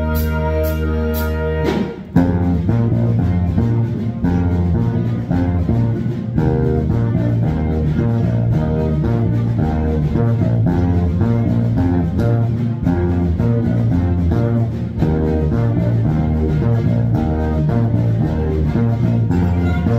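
Electric bass guitar playing a repeating Latin-style bass line over backing music. A held chord with a few sharp clicks sounds first, and the bass line starts about two seconds in.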